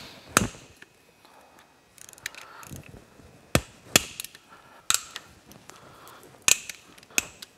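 Ratchet loosening the crankcase bolts of a 2008 Yamaha YZF-R6 engine a quarter turn at a time: about six sharp snaps as bolts break free, with fainter clicks between.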